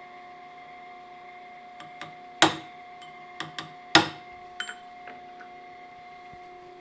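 Hammer striking a punch held against a steel camshaft, peening the low side of the shaft to straighten it: two sharp metallic blows about a second and a half apart, each with a short ring, among several lighter taps.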